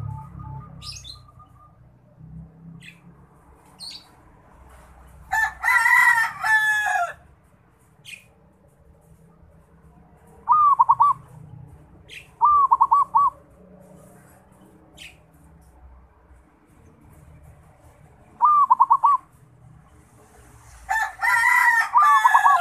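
Zebra dove cooing three short bursts of quick rolling notes, a young bird learning its song. A rooster crows twice, the loudest sound, about five seconds in and again near the end, with faint chirps of other small birds in between.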